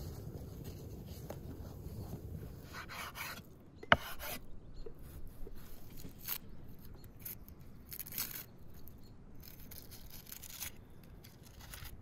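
A knife peeling dry onion skin: a run of short papery scraping and crackling strokes, with one sharp click about four seconds in.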